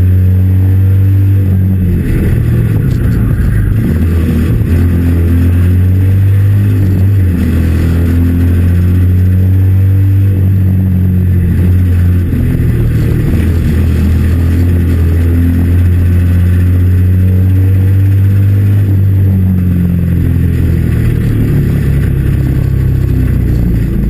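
A small race car's engine heard from inside the cabin, running loud and hard around a track. The engine note shifts in pitch several times as the throttle and gears change.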